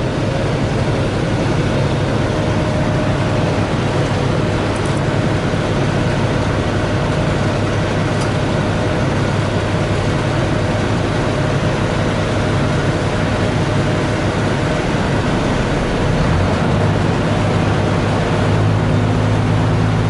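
Vehicle ferry's engine running steadily under way, a constant low hum over a steady rushing noise; the hum grows louder about three-quarters of the way through.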